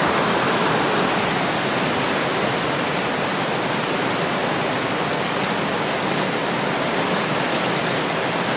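Heavy storm rain pouring down steadily onto the street, an even rushing with no pauses.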